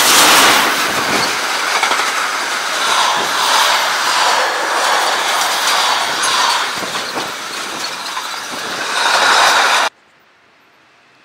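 Freight train hauled by two SBB electric locomotives passing close by. It is loudest as the locomotives go past, then gives a steady rushing clatter of the wagons' wheels on the rails. The sound cuts off suddenly about ten seconds in, leaving only a faint background.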